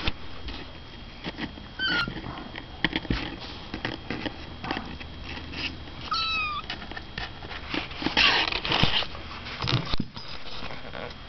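Two-week-old kittens mewing: a few short, high-pitched mews, one about two seconds in and two or three close together about six seconds in. Between them come the scratch and rustle of the kittens moving about in a cardboard box on a blanket, with a louder rustle about eight seconds in.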